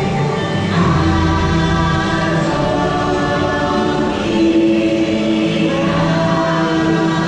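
Choral singing in the ride's soundtrack music: voices holding long notes that shift every second or two over a continuous musical backing.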